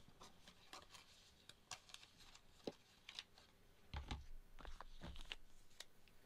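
Faint crinkling and clicking of stiff clear plastic packaging being handled. Soft thumps come about four and five seconds in, as the plastic pack holding the watch cases is pressed and shifted on the desk.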